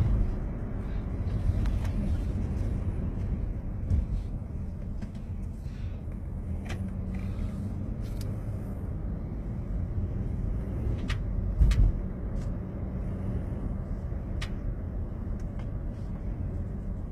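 Steady low rumble of a car driving, heard from inside the cabin. It is broken by a few scattered sharp clicks or cracks, and there is a louder thump about two-thirds of the way through.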